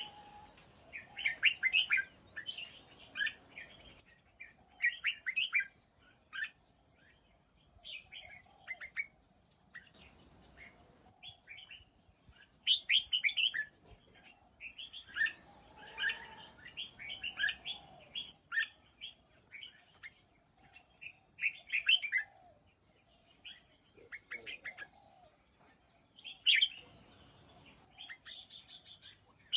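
Red-whiskered bulbul singing: short, quick phrases of chirpy whistled notes, repeated every second or two with brief pauses between them.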